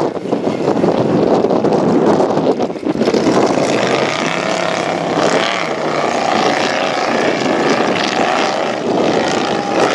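Tube-frame off-road hill-climb buggy's engine revving hard as it charges up a steep dirt hill, the pitch rising and falling from about four seconds in. Wind buffets the microphone in the first few seconds.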